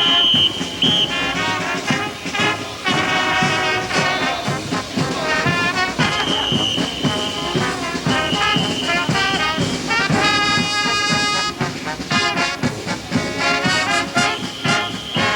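Brass band music, trumpets and trombones playing a tune with several long held high notes. The music ends just after this.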